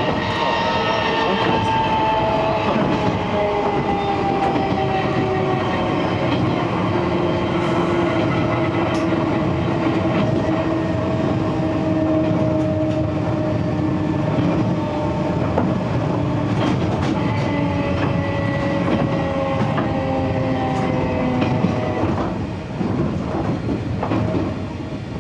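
Enshu Railway 30 series electric train's nose-suspended traction motors whining with a pitch that falls steadily as the train slows, and a second falling whine begins about 17 seconds in. The motors keep sounding while slowing because the car is fitted with dynamic braking. Rail-joint clicks run under the motor sound, which drops away a little after 22 seconds.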